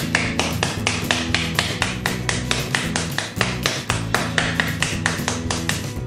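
Wooden spoon smacking the rind of an upturned pomegranate half in a fast, even run of sharp taps, about five a second, knocking the arils loose into a bowl. Background music plays underneath.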